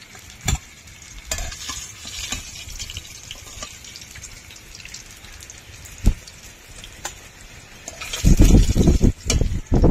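Rohu fish pieces frying in hot oil in a kadai: a steady sizzle with a couple of sharp knocks against the pan. Near the end the sound becomes much louder and rougher.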